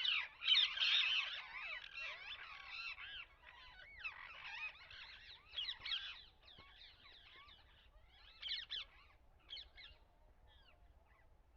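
A flock of parrots calling, many short, sweeping calls overlapping into a dense chatter that thins to a few scattered calls in the second half.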